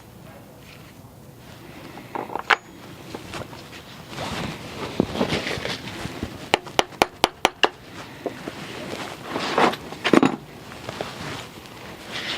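Hands working plastic and metal parts of an EVAP canister: scraping and handling noise with scattered knocks, and a quick run of about eight sharp clicks about halfway through.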